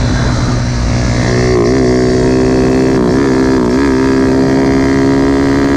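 Small motorcycle engine running hard at high revs, its pitch held steady from about a second in with a few brief wobbles, then dropping away near the end.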